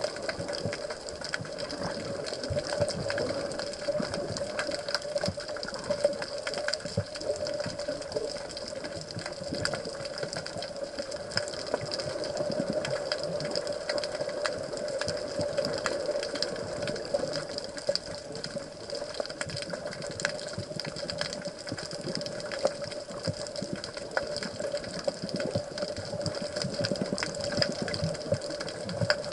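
Underwater ambience picked up by a camera submerged in the sea: a steady mid-pitched hum over a muffled water wash, with light crackling throughout.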